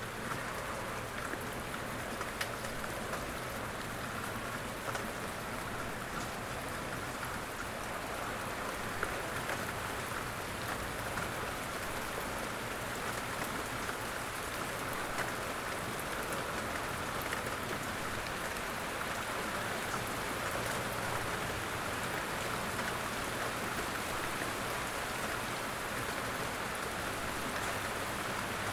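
Steady light rain falling, with many small drops tapping on a surface.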